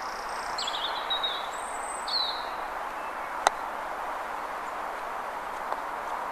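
A single sharp knock of a croquet mallet striking a ball, about halfway through. Birds chirp in the first couple of seconds over a steady outdoor background hiss.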